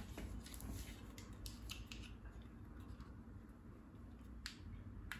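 Faint handling of a Remington wide-plate hair straightener as it is brought to a wig: a few light clicks, with two sharper clicks near the end.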